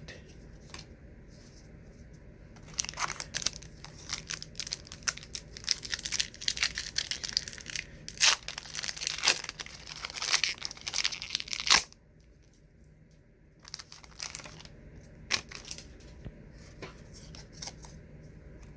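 A trading card pack's wrapper being torn open and crinkled, a dense crackling that starts about three seconds in and stops abruptly after about nine seconds. Afterwards, a few light clicks of the cards being handled.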